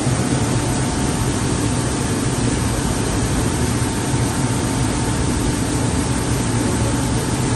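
Gravity separator running: the steady, loud drone of its air fan and vibrating deck, with a low hum underneath.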